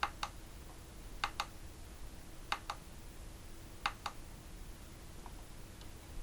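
Small sharp clicks in four pairs, the two clicks of each pair about a quarter second apart and the pairs about every 1.3 seconds, like a button pressed and released; two fainter single clicks follow near the end.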